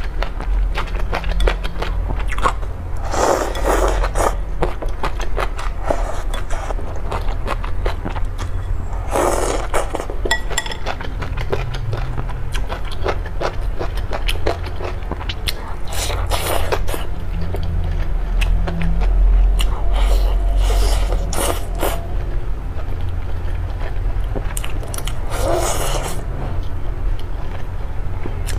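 Close-miked eating of braised fatty pork: wet chewing and biting with many small mouth clicks, and a few longer, louder wet sounds every several seconds, over a steady low hum.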